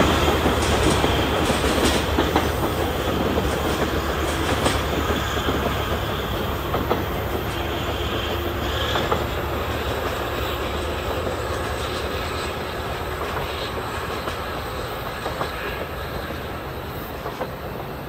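Train wheels rolling and clacking over rail joints, with some wheel squeal and a low rumble, the whole sound fading steadily as the train draws away.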